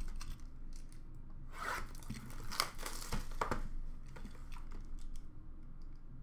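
Hands tearing open a hockey trading-card box and its wrapping: a few short, papery rips with crinkling and handling noise between them.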